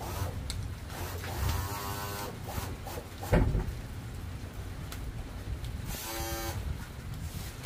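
A small electric motor whirs briefly twice, each run lasting under a second, with one sharp knock between them over a steady low rumble.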